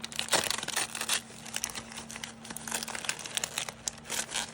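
Crinkly plastic wrapping bag being handled and pulled open by hand: irregular crackling and crinkling, loudest in the first second or so.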